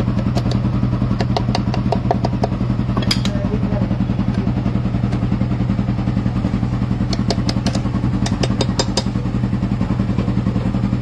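An engine running steadily at idle, a low, evenly pulsing hum, with clusters of light metallic clicks from metal parts being handled, two clusters in the first three seconds and a quicker run of clicks between about seven and nine seconds in.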